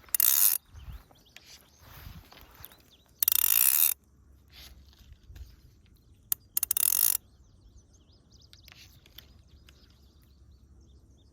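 Click-and-pawl fly reel buzzing in three short bursts as line is pulled off the spool, about three seconds apart.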